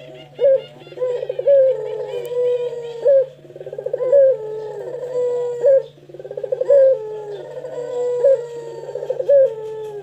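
Ringneck dove (puter pelung) cooing: about four repeated rolling coo phrases, each with a sharp loud note and a rapid trill. A steady low hum lies under it.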